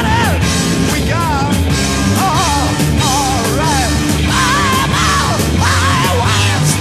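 Rock music with a sung vocal line over drums and bass guitar.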